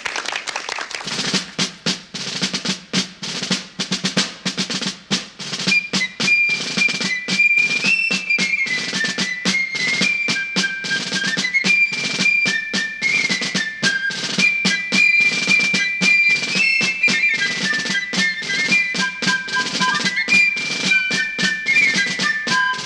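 Background music: a brisk snare-drum rhythm, joined about six seconds in by a high melody line.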